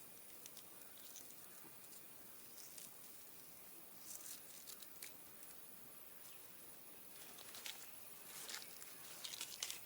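Faint scattered rustles and light crackles of banana fibre and reed sticks being handled while a bundle is tied, over a steady thin high-pitched whine.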